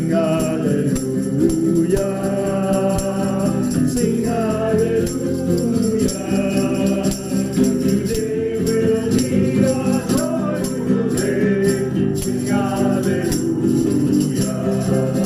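A group of voices singing a hymn together over instrumental accompaniment, with a shaker-like rattle keeping the beat.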